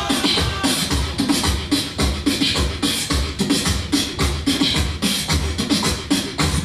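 Human beatboxing: a fast, steady beat of deep vocal kick drums with sharp snare and hi-hat sounds packed between them.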